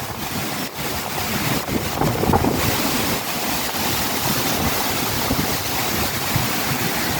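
Strong wind blowing in gusts and buffeting the microphone; the rushing hiss grows stronger about two and a half seconds in.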